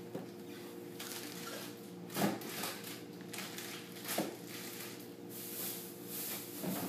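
Grocery packages being handled and put away: plastic packaging rustling and crinkling, with a few sharp knocks of items being set down, the loudest about two seconds in. Under it a refrigerator's compressor hums steadily.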